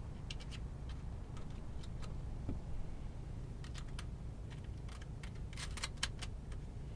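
Scattered small clicks and taps from handling battery cable connectors, with a quick run of several clicks about five and a half seconds in, over a low steady hum.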